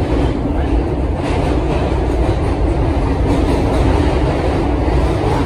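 Budd R32 subway car heard from inside while running through a tunnel: a loud, steady rumble of wheels on rail and running gear.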